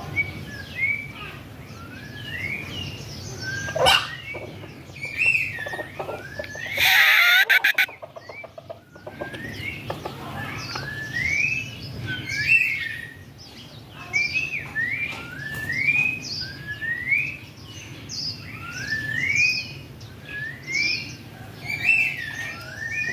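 A small bird chirping over and over, short rising chirps about one or two a second. There is a brief loud burst of noise about seven seconds in.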